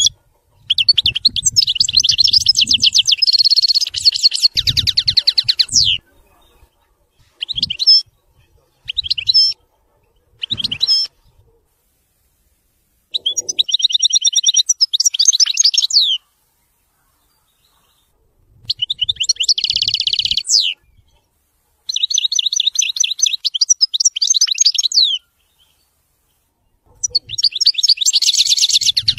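European goldfinch singing: long phrases of rapid, high twittering trills several seconds each, broken by short pauses and a few brief call notes.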